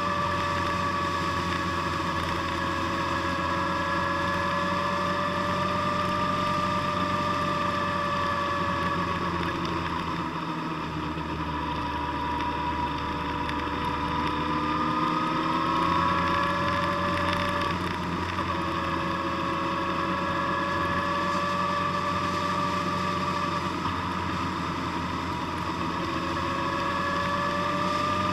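A road vehicle's engine and drivetrain running at road speed with road and wind noise. It is a steady drone with a whine whose pitch slowly rises and falls as the speed changes.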